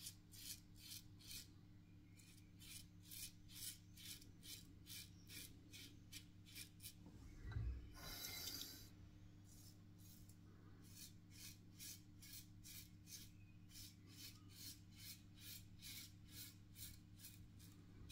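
Single-edge safety razor (RazoRock Hawk V2 with a Feather ProGuard blade) scraping through lathered stubble on an across-the-grain pass, in short rasping strokes about two or three a second. About halfway through the strokes pause for a brief louder rustle and bump.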